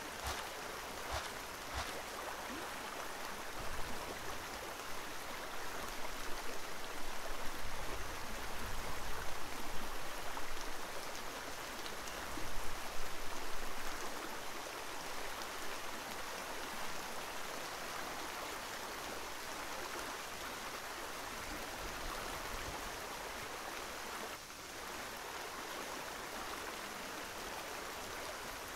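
Steady rush of running water, growing a little louder midway through.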